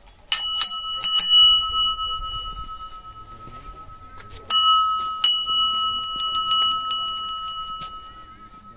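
Hindu temple bell rung by hand in two bouts: a few quick clapper strikes just after the start, then another run of strikes about four and a half seconds in, each bout leaving a ringing tone that fades away slowly.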